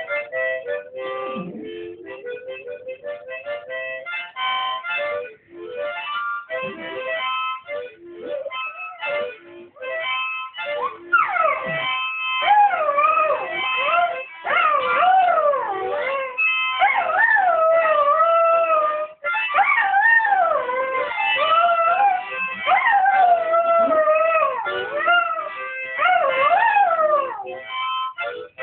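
Harmonica playing held, stepped notes. About a third of the way in, a dog starts howling along in long, wavering, gliding notes, louder than the harmonica, and keeps howling until shortly before the end.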